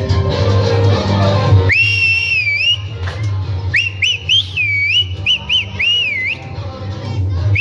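Balochi chap dance music with a drum beat. About two seconds in, a person starts whistling loudly over it in high, warbling trills, with short breaks and starting again near the end.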